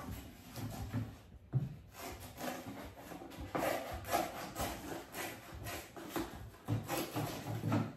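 Cardboard being cut by hand: an uneven run of scraping, rasping strokes, with a few dull knocks as the piece is handled on the bench.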